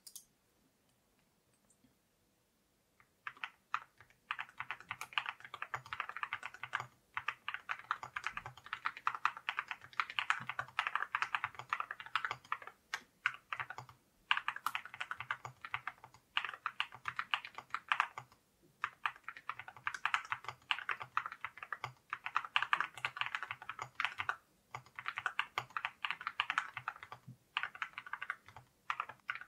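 Typing on a JRIS 65 mechanical keyboard fitted with ceramic keycaps. Fast runs of key clicks start about three seconds in and come in bursts of a few seconds, with short pauses between them.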